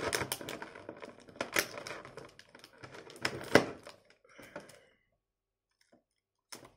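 Paper inserts and packaging of a boxed action-figure set being handled: rustles and a run of sharp clicks and taps, busiest in the first four seconds, with one more click near the end.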